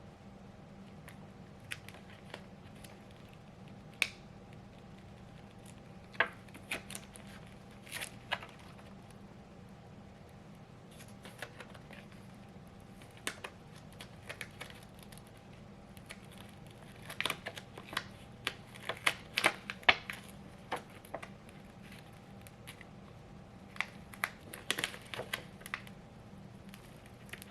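Cut Smart Vinyl being peeled slowly by hand: scattered small crackles and ticks, sparse at first, then coming in denser clusters in the second half.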